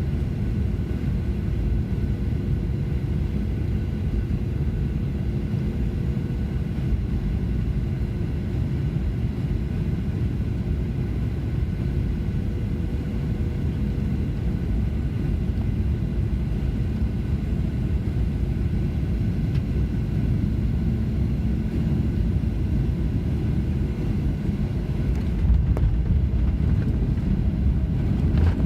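Steady low rumble of a Boeing 737-900 heard from inside the cabin during landing: engine and airframe noise with a few faint steady hums, growing slightly louder near the end.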